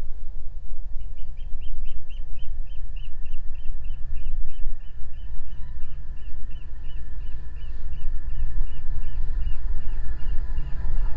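Steady low rumble of wind on the microphone, with a short high pip repeating evenly about three to four times a second from about a second in. Near the end a faint rising hum from the rails begins as a train approaches over the steel bridge.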